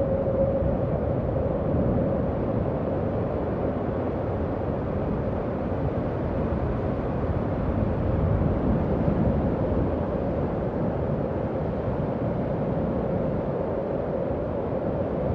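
Howling wind sound effect: a steady low rush of wind with a faint wavering whistling howl running through it.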